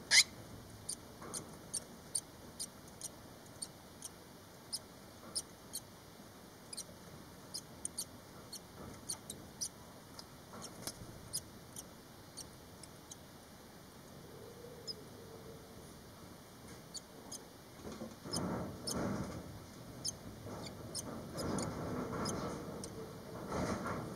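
Five-day-old barn swallow nestlings giving thin, very high, short peeps, about two a second. In the last several seconds there is a louder, lower rustling.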